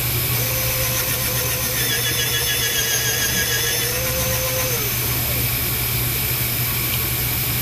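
Powered case-trimming lathe spinning a brass rifle cartridge case into a carbide three-way trimmer head that cuts its length and inside and outside diameter: a steady motor whine, with a higher wavering whine in the middle while the case is cutting. The motor's pitch drops as it stops about five seconds in, over a steady low hum of shop machinery.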